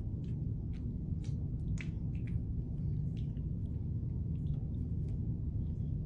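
Faint, scattered wet squishes and slicks of a water-slicked hand stroking down a lump of clay to pull a mug handle, over a steady low rumble of room noise.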